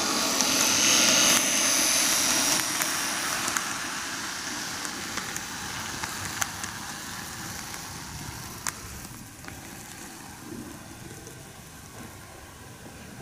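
TOMIX N-gauge Meitetsu 8800 series model train running on the track: a small electric motor whirring and wheels rolling on the rails, with a few sharp clicks. It is loudest in the first couple of seconds, then fades steadily as the train slows and draws to a stop.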